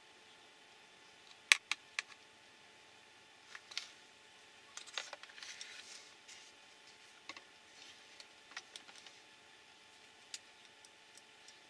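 Sharp plastic clicks and knocks from an RC car's plastic chassis and a screwdriver being handled. The loudest are a quick cluster of three about one and a half seconds in, then a short rustle of handling in the middle and a few lighter clicks after.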